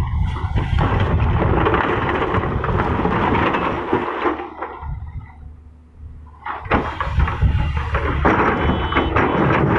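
Excavator working: a heavy engine rumble with rough scraping and knocking, as of the bucket moving and leveling soil. It eases off about five seconds in and picks up again a second or so later.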